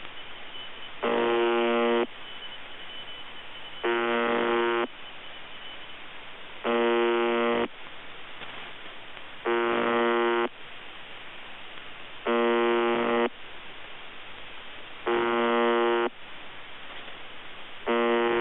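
The shortwave numbers station UVB-76, 'The Buzzer', on 4625 kHz, heard through a software-defined radio receiver: a harsh, buzzing tone about a second long, repeating about every three seconds with radio static hissing between the buzzes. It sounds a bit broken.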